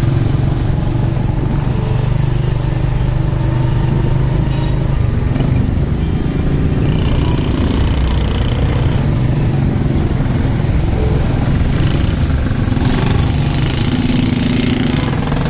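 Road traffic noise: a vehicle engine running steadily as a low hum, with a continuous noisy hiss over it.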